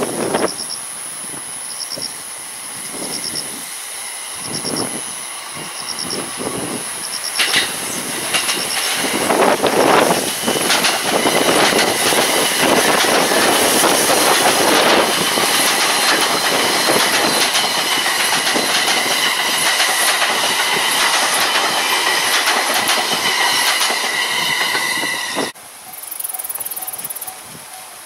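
JR East electric train on the Joban Line approaching and passing close by at speed: the rush of wheels on rail builds up and holds for many seconds with a steady high whine, then cuts off abruptly near the end. Strong gusty wind buffets the microphone.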